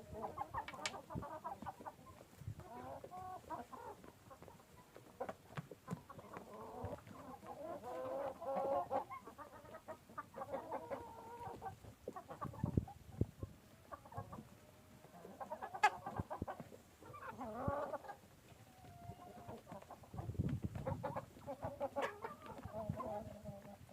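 A flock of Qora Shaxzoda black giant-breed chickens clucking, with overlapping short calls coming and going throughout, a few sharp clicks and a couple of dull low thumps.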